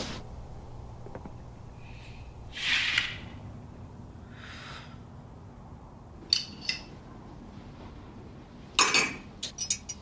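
Tableware handled: a couple of short scraping rustles, then a spoon clinking against a cup, twice a little past the middle and in a quick run of clinks near the end.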